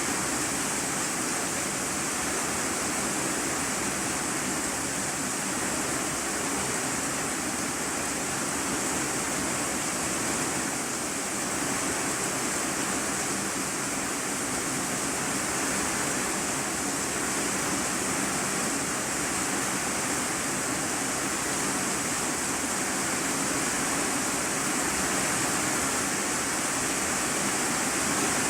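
Steady rain drumming on an iron-sheet roof, heard from the room beneath as an even, unbroken hiss.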